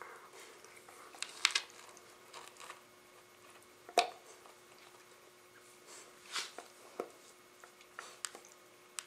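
Dogs playing together, a Labrador with a Rottweiler puppy: scattered short mouth and scuffling sounds and clicks, the loudest a sharp click about four seconds in, over a faint steady hum.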